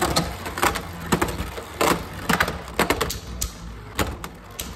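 Two Hasbro Beyblade Burst spinning tops battling in a plastic stadium: sharp, irregularly spaced clacks, several a second, as the tops strike each other and the stadium walls, over a steady low hum.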